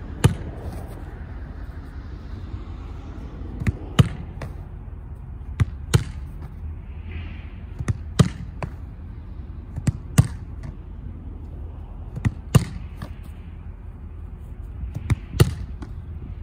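Soccer ball volleyed against a concrete block wall and caught on the rebound, over and over: sharp ball thuds in close pairs about every two seconds, seven times, over a steady low rumble of wind.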